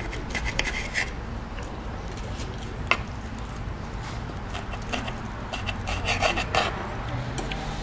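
Eating sounds at a meal: short bursts of crisp clicking from chewing and cutlery. There is a single sharper click about three seconds in, over a steady low hum.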